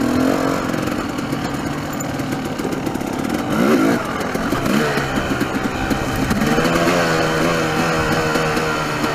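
Dirt bike engine running under load as the bike is ridden over a rough trail, its pitch rising and falling with the throttle. It revs up sharply about three and a half seconds in, the loudest moment.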